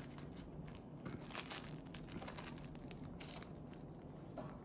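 Plastic film wrapper of a Japanese convenience-store rice ball (onigiri) crinkling and crackling as it is pulled open, in quick irregular crackles.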